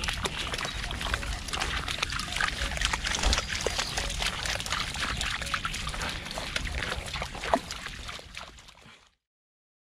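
Dogs wading through shallow water among grass and reeds, splashing and sloshing with each step, over a low rumble. The sound fades out about nine seconds in.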